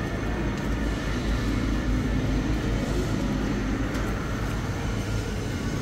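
Steady low rumble with a faint hum, the background noise of an underground car park, with no distinct event standing out.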